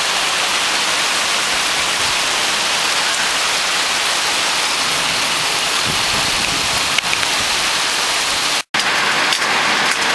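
A hailstorm, with hail and rain pelting pavement and a balcony ledge: a dense, steady hiss with a few faint ticks. The sound breaks off for a split second about two-thirds of the way through.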